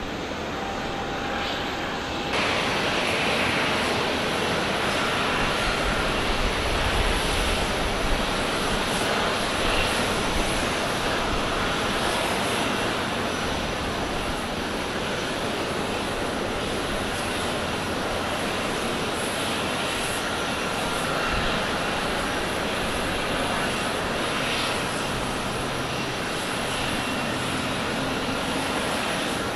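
Jet engines of a Boeing 787-9 running at ground idle on the apron: a steady roar with a faint high whine over it. The sound gets louder about two seconds in and then holds steady.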